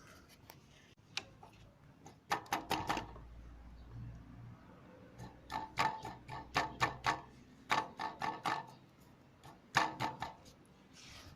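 Kawasaki Z300 exhaust header tapped by hand in several short bursts of quick metallic knocks, each with a brief rattle from inside. The rattle is the noise of the broken catalytic converter loose in the header.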